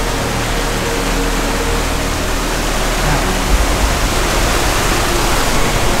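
Steady rush of a fast mountain stream cascading down a rocky waterfall close by, an even hissing roar of white water over stones.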